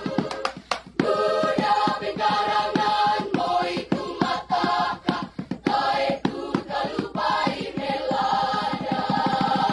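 A school choir singing, with held chords over quick rhythmic syllables. The singing drops briefly just before a second in, then comes back in full.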